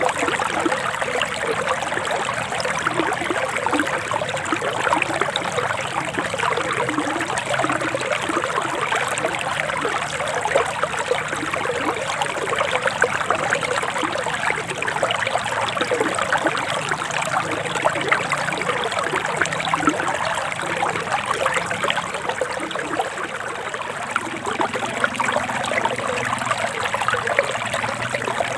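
Forest stream water running steadily with a continuous trickling, bubbling flow.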